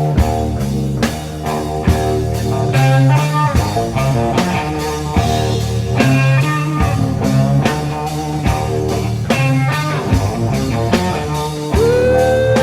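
Live psychedelic rock band playing: electric guitar over bass and drum kit. Near the end a long note is held on the guitar.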